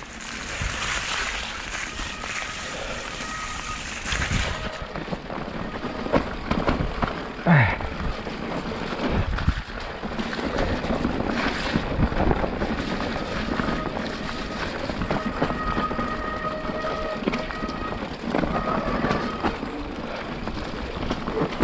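Mountain bike ridden down a wet trail in the rain: a steady noise of tyres on wet ground and wind on the camera, with rattles and knocks from the bike over bumps and a brief falling squeak about seven and a half seconds in.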